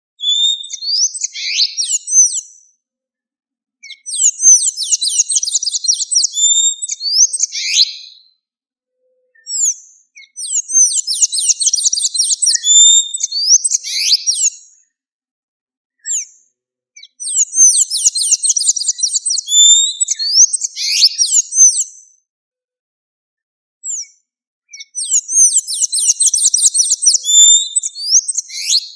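Blue-gray tanager (sanhaço-da-amazônia) singing: five bouts of rapid, high, squeaky twittering, each a few seconds long, with brief silent pauses between them.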